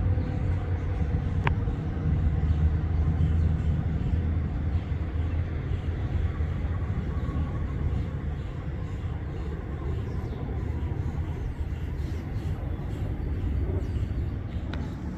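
The tail of an ACA Penetrator-50 tornado siren's growl test winding down, its falling tone fading out in the first couple of seconds, leaving a steady low rumble.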